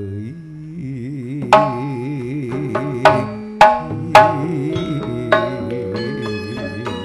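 Madurese gending music: a sustained, wavering melody line over struck percussion, with several sharp ringing strikes, the loudest coming between about one and a half and four seconds in.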